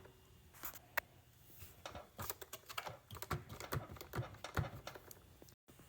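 Irregular light clicks and taps of hands handling a portable fridge and its packing during unboxing.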